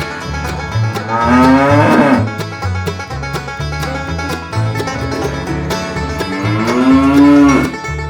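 A cow mooing twice, each moo a long low call of about a second, the second one a little longer. A banjo-led bluegrass tune plays underneath.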